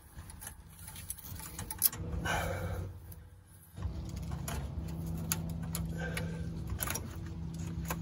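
Light clicks and small metallic rattles of fuel-line fittings being handled and connected to a replacement fuel pump, with a steady low hum starting about four seconds in.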